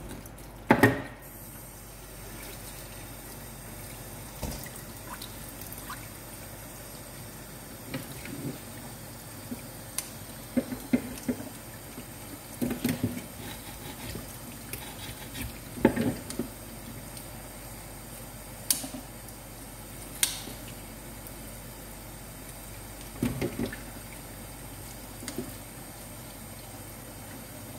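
Kitchen tap running steadily into a stainless steel bowl in the sink, with scattered sharp knocks and clicks of a knife and scissors against a plastic cutting board as fish is cleaned.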